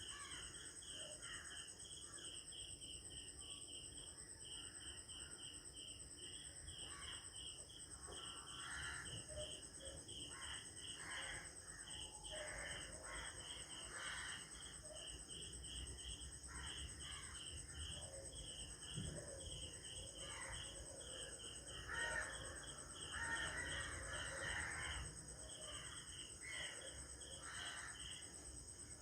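Insects chirping steadily in a pulsing rhythm of a few chirps a second, over a constant high insect drone, with crows cawing now and then. The caws are loudest and come most often a little past the middle.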